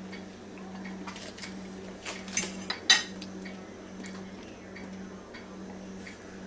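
A fork clinking and scraping against a plate as food is scooped up, with a few sharp clicks between about one and three seconds in; the loudest comes near three seconds. A steady low hum runs underneath.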